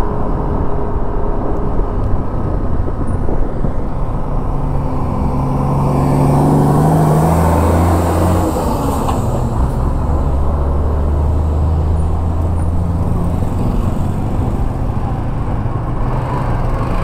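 Ride noise from a Yamaha motor scooter on the move: wind on the microphone over the scooter's steady engine. A heavy diesel vehicle's low engine drone builds alongside and is loudest about six to nine seconds in.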